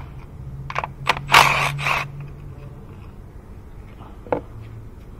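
Milwaukee M12 Fuel cordless power tool running in a few short bursts between about one and two seconds in, spinning out the ignition-coil bolts on the valve cover, over a steady low hum. A single sharp metallic click about four seconds in.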